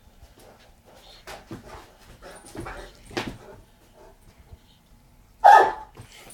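Newfoundland dog giving a single loud, short bark about five and a half seconds in, a play bark at a cat. Before it come softer short scuffs and clicks.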